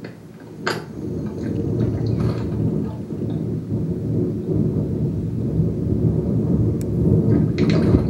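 Water splashing and sloshing in a shallow birdbath as American robins bathe right beside the camera, heard as a loud low rumbling wash that builds after the first second, with a few sharp splashes, the strongest near the end.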